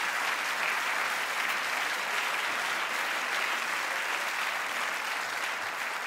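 Large theatre audience applauding, a steady dense clapping.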